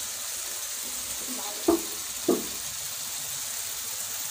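Onion and ginger-garlic masala frying in oil in a metal kadai with a steady sizzle. Two short, louder knocks come about a second and a half and two seconds in.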